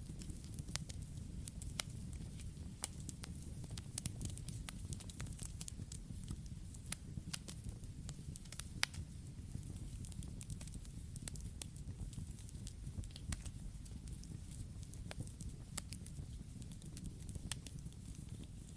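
Campfire burning, with a steady low rumble of flames and frequent sharp, irregular crackles and pops of burning wood.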